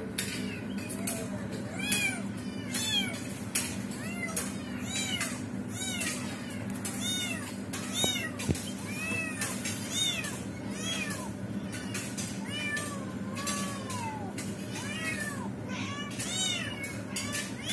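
Cats meowing over and over: a long string of short, high, rising-and-falling mews over a steady low hum.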